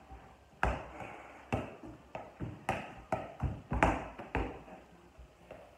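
Soccer ball being juggled on bare feet: a quick, uneven series of about ten dull knocks, each a touch of the ball, starting about half a second in and thinning out toward the end, with a short ring from the room after each.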